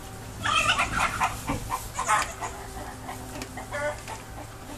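Farm-animal calls: a quick run of short pitched calls starting about half a second in, then a few more spaced out, one near the end.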